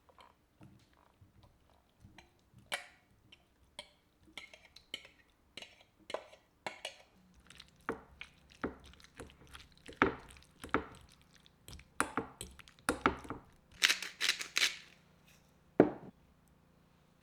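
Kitchen work: irregular light knocks and clinks of dishes and utensils being handled on a counter, getting busier as it goes, with a quick run of sharper clatters near the end.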